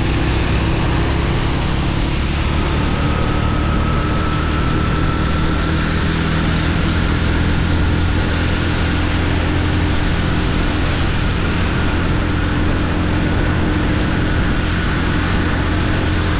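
Motorcycle engine running steadily under a constant rush of noise, heard from the rider's position. A faint high whine creeps slowly up in pitch from about two seconds in.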